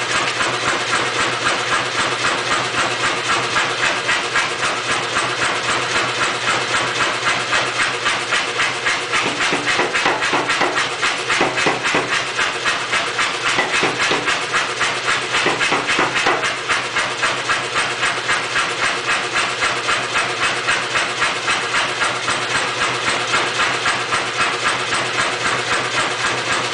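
Say-Mak pneumatic power hammer running with a rapid, steady knocking rhythm. From about a third of the way in until a little past halfway, the strikes are heavier as the hammer works a red-hot steel disk, rounding up its edge.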